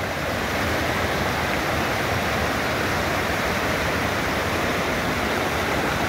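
Steady rush of water from a waterfall and shallow rapids pouring over flat rock, an even, unbroken noise.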